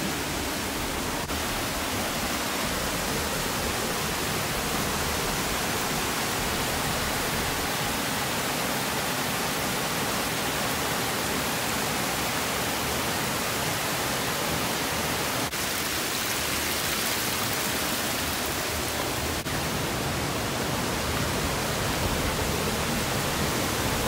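Steady rush of falling water from Amadaki waterfall, an even, unbroken noise with no change in level.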